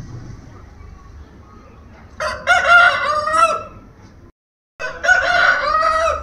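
A desi rooster crowing twice, each crow about a second and a half long and falling in pitch at its end.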